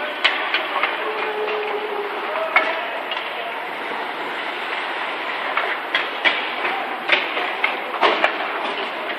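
Ice hockey play in an arena: sharp clacks of sticks and puck and scrapes of skates over a steady hall noise. The clacks come more often in the second half.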